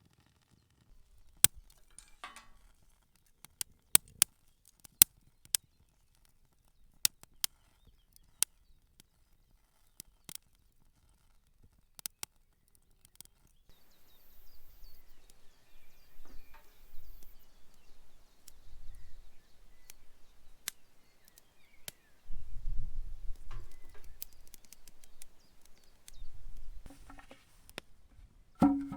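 A dozen or so scattered sharp clicks and knocks in the first half, then low wind rumbling on the microphone from about halfway through, growing stronger near the end.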